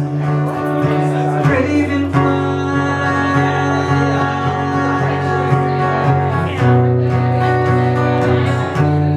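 Acoustic guitar played live in an instrumental break between sung verses, its chords ringing and changing every second or two.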